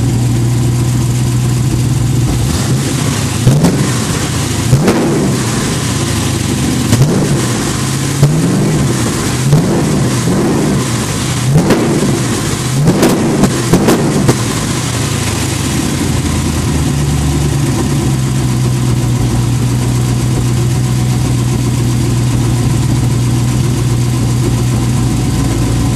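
The engine of a 1988 Lamborghini Countach replica idling steadily. From about three seconds in it is revved in a series of a dozen or so short throttle blips, each rising and falling, over roughly ten seconds, then it settles back to a steady idle.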